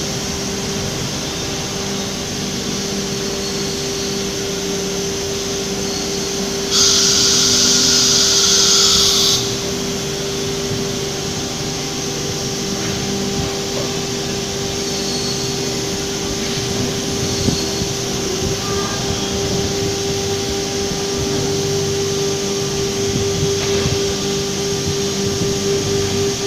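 Industrial CNC router running with a steady mechanical hum and one steady tone throughout. A loud hiss starts suddenly about seven seconds in and stops after about two and a half seconds.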